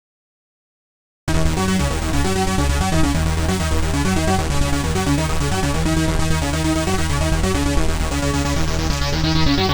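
Silence, then about a second in, an electronic trance-style track played on the Ad-vantage 03m analog monophonic synthesizer starts abruptly, with repeating low synth notes. Near the end a bright filter sweep falls in pitch.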